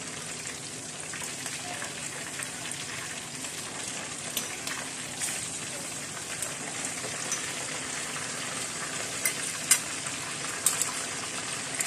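Pork hock deep-frying in hot oil in a stainless steel pot: a steady sizzle with scattered crackles and oil spatters, and a few sharper pops near the end.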